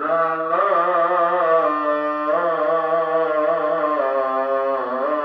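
A loud, drawn-out horn-like drone that wavers slightly and shifts pitch a few times, with brief breaks between held notes.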